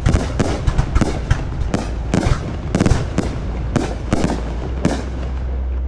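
Fireworks display going off: a rapid, irregular series of sharp bangs, several a second, over a steady low rumble.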